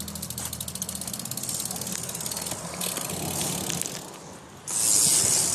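BMX bike's rear hub ticking rapidly as the bike coasts, with tyre and rolling noise. Near the end a loud hiss sets in.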